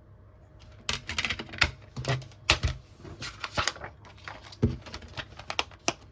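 DVD case and packaging being handled: a quick run of sharp plastic clicks and rustles, starting about a second in.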